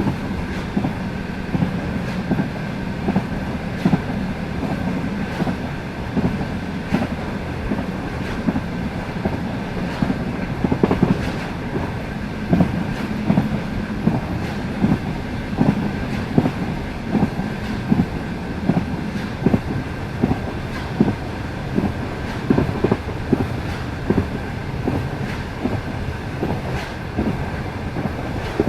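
Passenger train running at speed, its wheels clicking over the rail joints again and again above a steady rolling rumble, with a faint steady high tone underneath.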